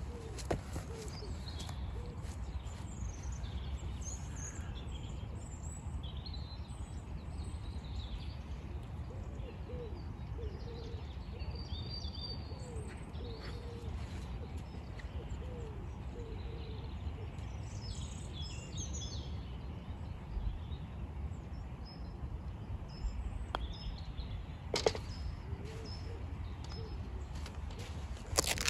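Outdoor ambience: a steady low wind rumble on the microphone, with birds chirping now and then, and a few sharp clicks in the last few seconds.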